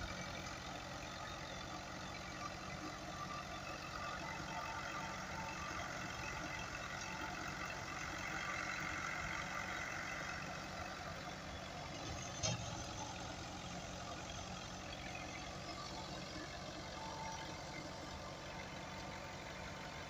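Fiat 640 tractor's diesel engine running steadily at work, powering a tractor-driven thresher, with the thresher's drum adding a steady whirring rush. A single short knock comes about twelve seconds in.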